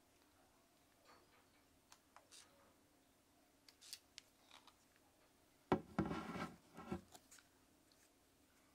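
Handling noise of a Fujifilm X100VI compact camera held and turned over in the hands: scattered small clicks and rubs. Just before six seconds in comes one sharp knock, followed by about a second of louder rubbing and rattling.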